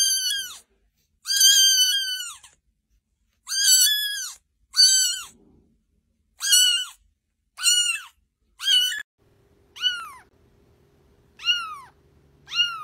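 Kittens mewing in high, thin calls. One kitten gives about seven drawn-out mews. After about nine seconds a second kitten gives three shorter mews that fall in pitch.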